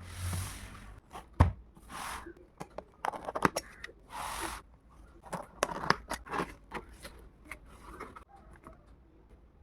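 Soundbar packaging being handled and opened by hand: repeated rustling and tearing swishes mixed with clicks and scrapes, with one sharp thump about a second and a half in.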